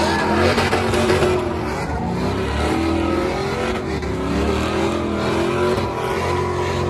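Pickup truck engine held at high revs during a burnout, its pitch rising and falling as the throttle is worked, with the rear tires spinning against the pavement.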